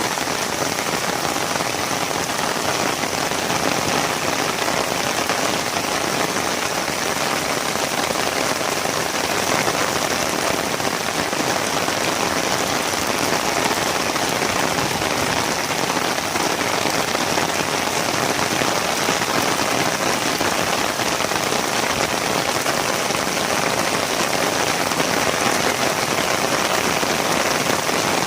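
Steady rainfall: a dense, even hiss of drops that holds level without a break.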